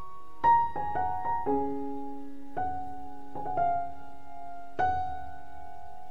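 Background music: a slow piano piece, single notes and small chords struck one after another and left to ring and fade.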